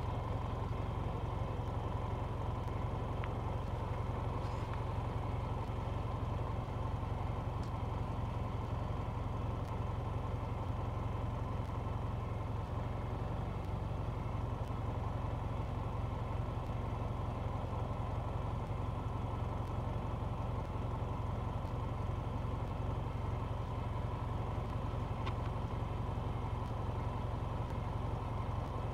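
A steady low rumble with a faint hum above it, unchanging in level.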